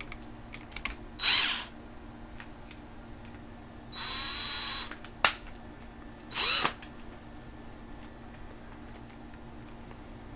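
Electric drill boring into a plastic tripod head, run in three short bursts: a brief one, a longer run of about a second, then another brief one. A sharp click falls between the second and third bursts.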